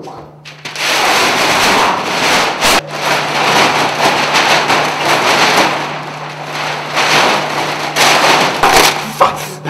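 A large printed paper poster being ripped down and crumpled by hand: loud, continuous crackling and rustling of stiff paper, with sharp tearing snaps throughout.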